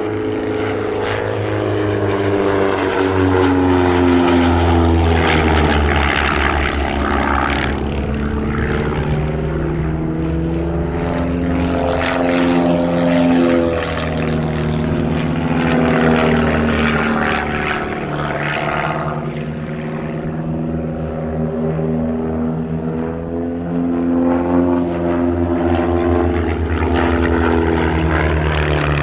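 Van's RV homebuilt aircraft flying aerobatics. The piston engine and propeller drone sounds steadily, its pitch rising and falling several times as the planes pass and manoeuvre.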